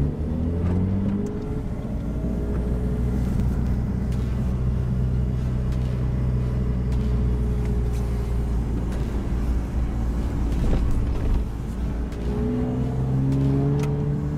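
Car engine driving uphill, heard from inside the cabin. The revs climb at the start, hold at a steady drone, then climb again near the end as the car accelerates.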